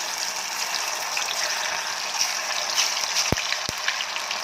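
Spice-coated soya chunks deep-frying in hot oil, a steady sizzle. Two sharp clicks a little after three seconds in.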